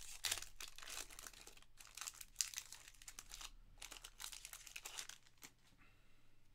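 Foil wrapper of a Panini Prizm soccer card pack crinkling and tearing as it is handled and ripped open by hand. The crackle comes in repeated short bursts and dies away near the end.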